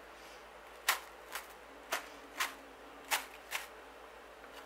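A spoon working whipped cream across the top of a meringue pavlova, giving about six short, crisp clicks and crunches roughly half a second apart.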